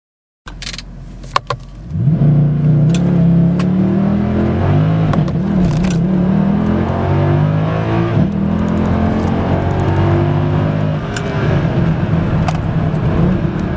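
Mercedes-AMG 6.3-litre V8 launching hard from a standstill in Race Start (launch control) mode, heard from inside the cabin. The engine note climbs steeply and drops back at each quick upshift, about three shifts up into fourth gear. A few sharp clicks come just before the launch.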